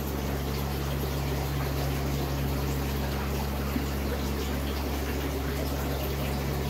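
A steady low mechanical hum with an even rushing noise over it, holding level throughout.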